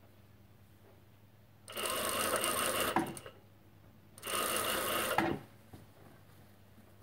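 Industrial single-needle lockstitch sewing machine stitching knit fabric in two short bursts, each about a second and a half long, with a pause of about a second between them.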